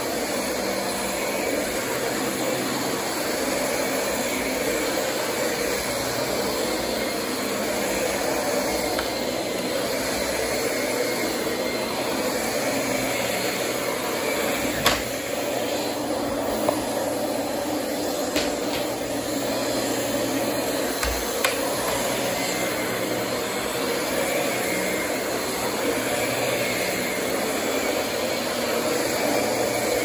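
Dyson DC25 bagless upright vacuum cleaner running steadily while it is pushed back and forth over a rug, with a few short clicks around the middle.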